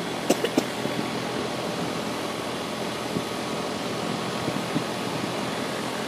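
2-ton Carrier Performance Series central air conditioner's outdoor condenser running: a steady rush of air from the condenser fan over a low hum. There are a couple of light clicks about half a second in.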